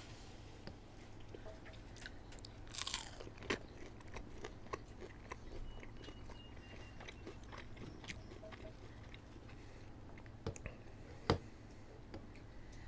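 Close-miked eating of fast food: chewing and crunchy bites with scattered sharp mouth clicks, the loudest about three and a half seconds in and again near the end, over a steady low hum.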